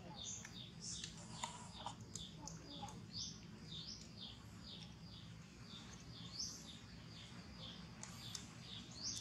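Faint birds chirping in the background: rapid short falling chirps, several a second, over a low steady hum.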